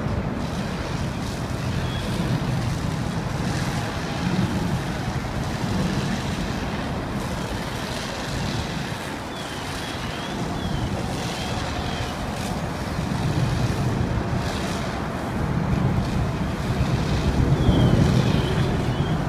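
Steady low rumble of running vehicle engines, with wind noise on the microphone; it swells a little near the end.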